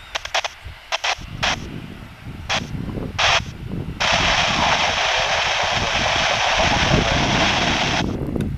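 Airband radio static: a few short crackles, then a hiss that cuts in about four seconds in and cuts off abruptly some four seconds later, like a keyed transmitter with no voice. Under it is a low rumble from the Boeing 737's jet engines as it rolls on the runway.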